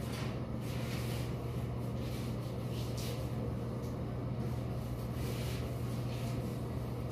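A steady low machine hum, with soft hissing strokes now and then as hands scrub soap-lathered skin.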